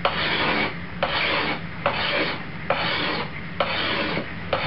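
Steel tanto knife blade drawn by hand across a sharpening stone in a steady back-and-forth rhythm: about five rasping strokes, roughly one a second, each starting with a light click as the edge meets the stone. The strokes are sharpening the tanto's secondary point, working back from it toward the full edge.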